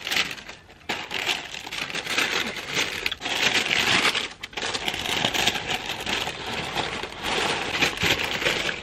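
Thin tissue wrapping paper in a shoebox rustling and crinkling as it is unfolded and pulled back by hand, a near-continuous run of rustles with a few brief pauses.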